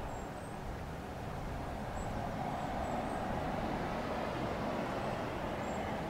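Road traffic on a city harbour road: a steady hum of vehicles that grows a little louder a few seconds in as a vehicle passes, with a few faint high chirps.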